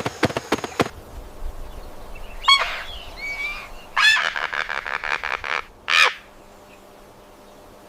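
Animal calls: a fast clicking rattle that stops about a second in, then three harsh, pulsed calls, the middle one a longer rattling call of about a second and a half.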